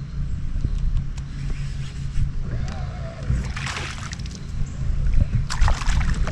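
Low rumble on the microphone from a kayak on the water, with a few short knocks and two brief splashy, sloshing bursts.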